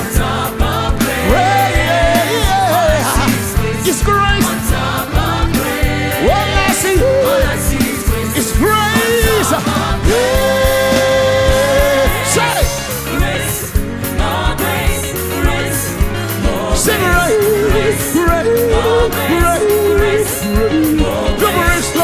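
Live gospel praise band playing with a steady beat while singers hold and bend sung lines over it, the voices not picked up as clear words.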